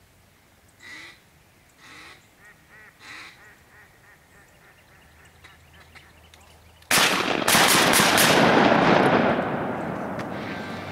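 Ducks quacking every second or so. About seven seconds in, a rapid volley of several shotgun blasts breaks out, followed by a long rolling echo that slowly fades.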